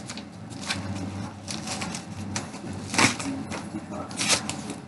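Manila paper envelope being handled and opened: irregular paper rustles and crinkles, the sharpest crackle about three seconds in.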